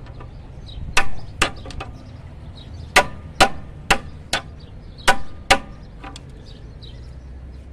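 Small hammer tapping a steel pry bar, sharp metallic taps in pairs with short pauses, about eight strikes in all. The taps drive in the alternator's sliding bushing guide on a 2001–2005 Honda Civic so the alternator can be freed from its bracket.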